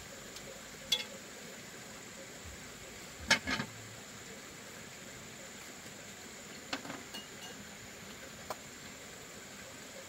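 A few sharp clinks and knocks of a ladle against a metal pot and a ceramic bowl while food is served, the loudest a quick double clink about three seconds in, with a few lighter knocks later as the bowl is handled and set down.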